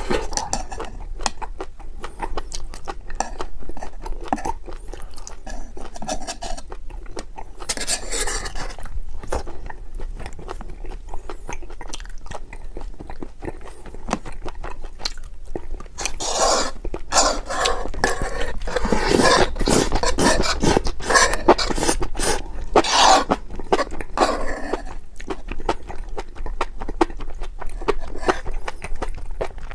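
Eating sounds: chewing, with cutlery clicking and scraping against a dish. There is a louder, busier stretch of crunching and scraping from just past halfway.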